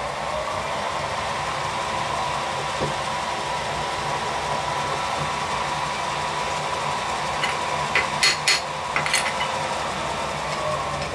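Machine drill spindle running steadily with a high whine as a small drill bit cuts into 303 stainless steel. A quick run of sharp metallic clicks comes about eight seconds in.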